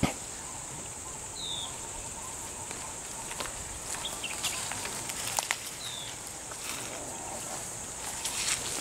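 Insects drone steadily at a high pitch. A bird gives a few short falling chirps, about three in all, and there are scattered sharp clicks.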